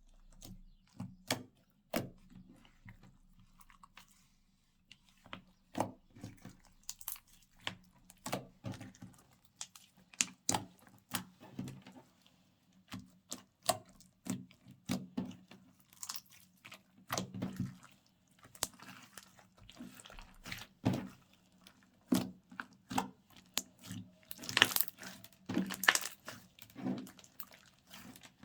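Hands squishing and kneading slime: irregular sticky clicks, pops and crackles, getting denser and louder near the end.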